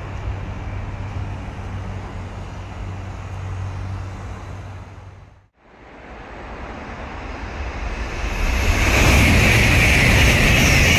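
A 700-series Rail Star Shinkansen pulling away, its rumble and low hum fading. After an abrupt cut about halfway through, an N700-series Shinkansen approaches and rushes through at speed, building to a loud, steady roar with a strong hiss by the end.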